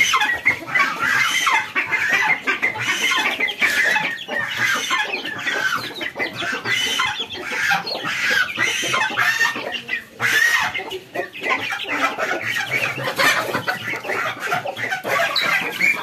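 A flock of chickens clucking and calling continuously, many short calls overlapping.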